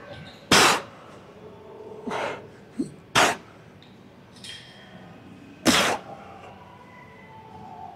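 A person's short, forceful exhalations, like breath pushed out on lifting reps: three strong ones about two and a half seconds apart, with softer breaths between.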